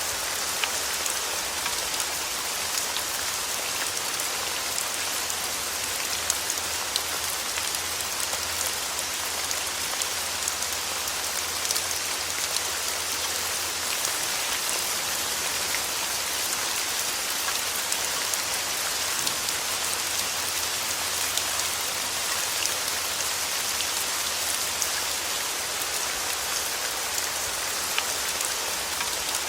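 Steady rain: a dense, even hiss of falling drops with scattered sharper drop ticks, played as continuous sleep-aid noise.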